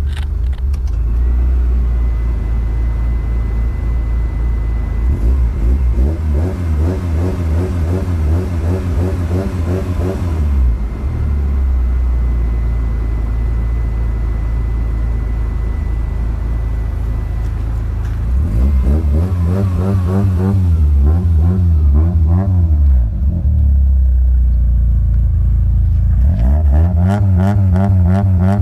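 Toyota 4A-GE 20-valve Silvertop four-cylinder engine idling and revved three times: a climb and fall back about six to ten seconds in, another around twenty seconds, and a third starting near the end.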